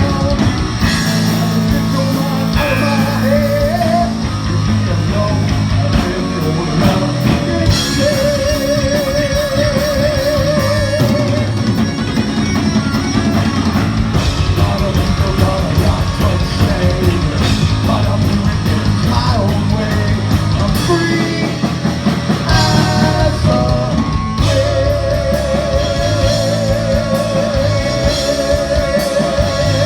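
Loud rock music in a heavy metal style: electric guitar and drum kit playing together, with long held lead notes that waver in pitch, starting a few seconds in and again from about 24 seconds.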